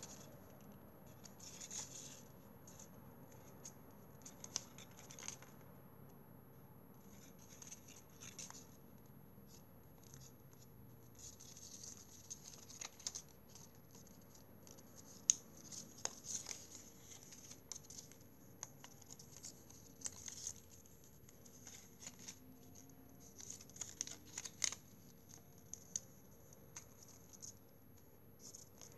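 A thin paper strip rustling and crinkling as it is folded and creased by hand, in irregular bursts with a few sharp crackles.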